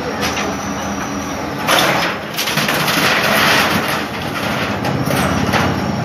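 Demolition excavator's engine running steadily while its arm tears down a stall, with crashing and scraping of corrugated metal sheets and debris, loudest from about two to four seconds in and again near the end.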